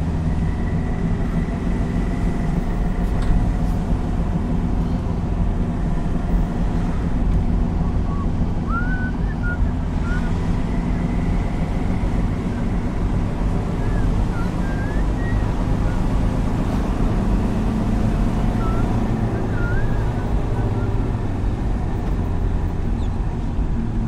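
Car engine and tyre rumble heard from inside the cabin while driving at a steady pace along a road, a constant low drone with no change in pace.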